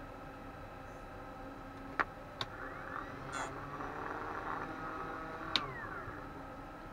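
A small cooling fan from an Eltek Flatpack 1500 W power supply is test-run while it is being balanced to cut its noise. It starts with a click and spins up with a rising whir, runs for about three seconds, then gives another click and winds down with a falling pitch.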